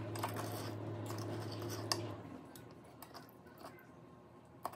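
Metal knife and fork cutting lasagna on a glass plate, with a few sharp clicks as the cutlery touches the glass. A low steady hum underneath stops a little before halfway.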